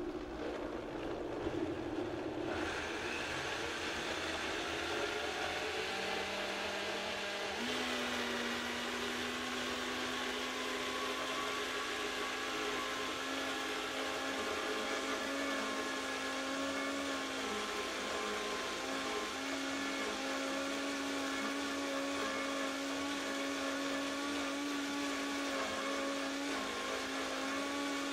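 Vitamix 5200 blender motor running under a thick load of chickpeas and sesame seeds for hummus. It rises in pitch as the variable speed dial is turned up, changes pitch suddenly about seven and a half seconds in as it is switched to high, then runs steadily at high speed.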